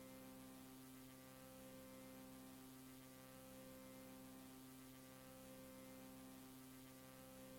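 Near silence, with only a faint steady electrical hum made of several even tones.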